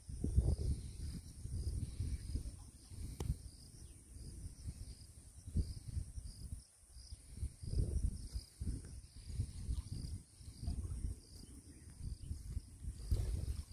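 Wind buffeting the microphone in uneven gusts, with insects chirping in the background: a steady high drone and a short high chirp repeating a few times a second.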